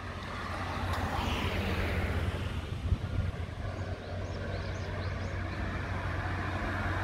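Steady rumble of a vehicle in motion, with a low hum throughout and a brief rising whine about a second in.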